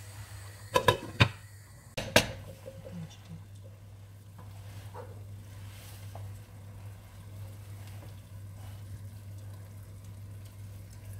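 A few sharp metal clanks of a cooking pot and its lid, a cluster about a second in and one more about two seconds in, over a steady low hum.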